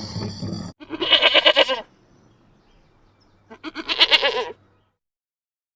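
A goat bleating twice, two quavering calls of about a second each, a couple of seconds apart.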